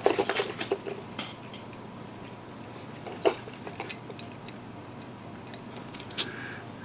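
Small metal tools clicking and clinking against the mouse and workbench during desoldering work: a quick cluster of taps at first, then a few single clinks.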